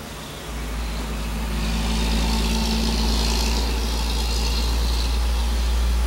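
A steady low mechanical rumble with a faint hum, coming up in level about half a second in.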